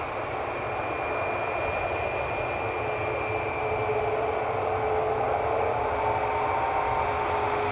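Boeing 737 MAX 8-200's CFM LEAP-1B turbofan engines running at low thrust as the jet rolls along the runway: a steady rumble with a high engine whine and lower whining tones, growing slightly louder.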